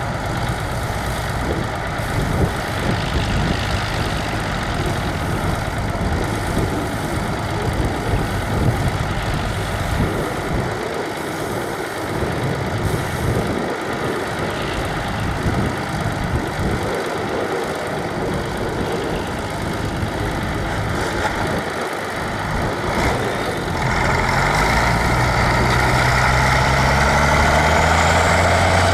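Tractor engines running steadily. About three-quarters of the way in, a louder tractor engine comes up close and picks up speed, its pitch rising.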